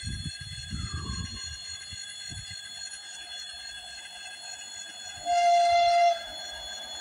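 ChS6 electric locomotive's horn sounding one short, steady blast of under a second as the train approaches.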